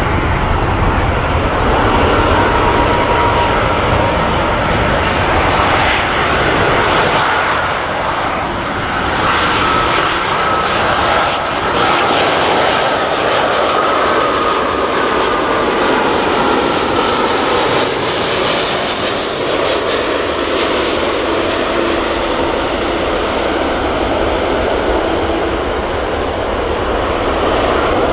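An Airbus A330-300's Rolls-Royce Trent 700 turbofan engines on landing approach, passing low overhead with steady jet noise. A whining tone slides down in pitch as the aircraft goes by.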